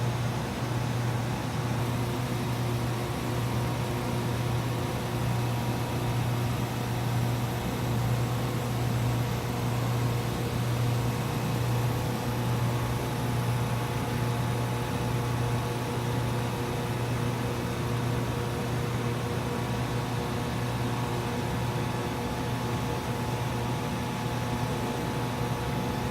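Steady machine drone with a strong low hum and a few faint steady higher tones, from a laboratory furnace system's running equipment.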